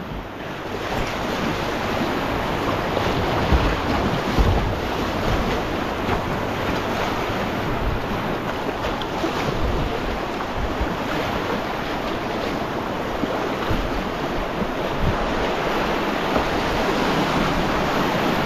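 River whitewater rushing and splashing steadily, with wind buffeting the microphone and a few low thumps.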